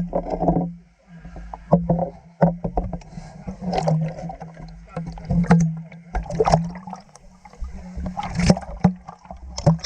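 Water splashing and sloshing close by, in irregular splashes every second or so over a steady low hum.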